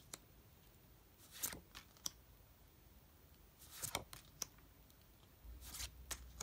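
Beautiful Rebellion tarot cards being flipped through by hand: faint short slides and light snaps as cards are pulled off the deck one after another, a second or two apart.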